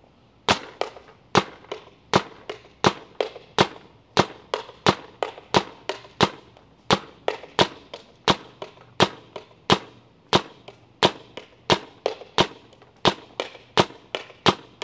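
Paintball marker with a 6.79 Carbon IC PWR barrel insert firing about twenty single shots at a steady pace, roughly one every 0.7 seconds. Each sharp pop is followed by a fainter crack.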